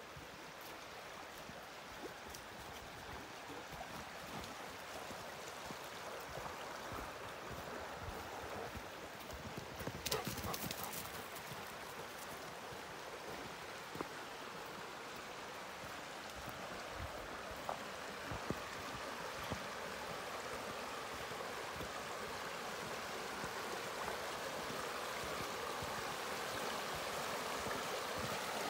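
Footsteps crunching on dry leaf litter and twigs along a trail, with the rush of a shallow, rippling creek growing steadily louder. A brief louder scuffle of rustling comes about a third of the way in.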